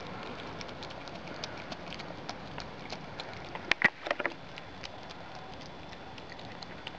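Common brushtail possum eating banana, with small wet smacking clicks of chewing throughout, and a cluster of louder clicks and knocks about four seconds in as it moves its clawed feet on the windowsill.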